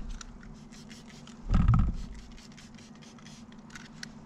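Trigger spray bottle spritzing onto hunting clothes in a quick, irregular series of short hisses, over a steady low hum. A dull thump about a second and a half in is the loudest sound.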